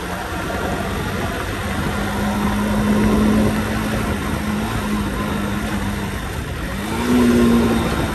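Motorcycle engine running at a steady road speed over wind and road noise, its pitch and loudness rising briefly about seven seconds in.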